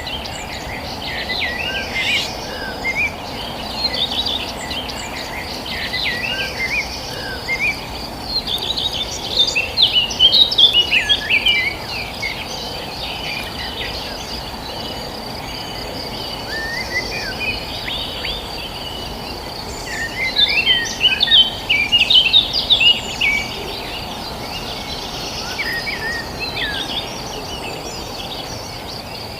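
Several small birds chirping in clusters of quick, varied calls, busiest about a third of the way in and again past two-thirds, over a steady high insect drone and an even low background hiss.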